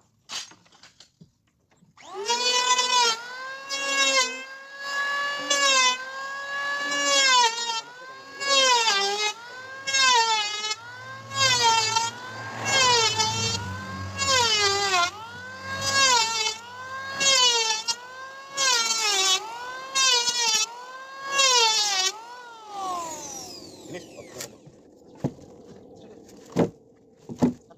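Electric hand planer whining as it shaves a wooden plank. It starts a couple of seconds in, and its pitch dips each time the blades bite into the wood and recovers between strokes, over and over about once a second. It winds down with a falling whine near the end, followed by a few light knocks.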